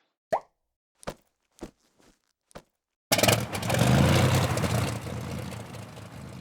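A few short, sharp clicks, then about three seconds in a vehicle engine starts up abruptly with a loud low rumble and runs on, slowly getting quieter.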